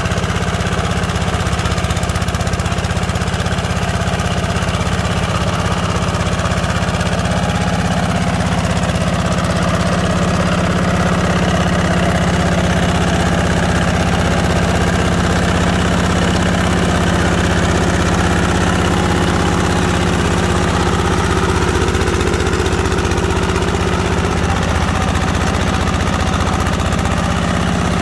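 Two-wheel hand tractor (motor plough) on steel mud wheels, its engine running steadily under load as it ploughs a flooded rice paddy.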